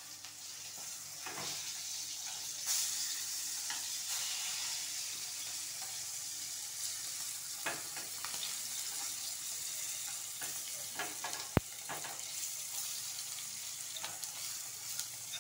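Sun-dried salted fish frying in hot oil in a frying pan, a steady sizzling hiss, with light taps of chopsticks turning the fish against the pan. About three-quarters of the way through there is a single sharp click.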